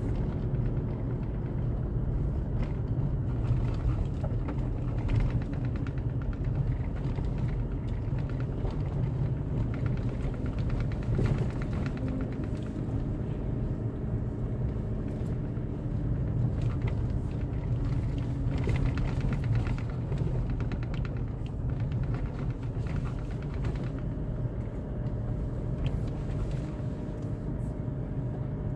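A car running along the road: a steady low engine and road rumble, with scattered light knocks and rattles.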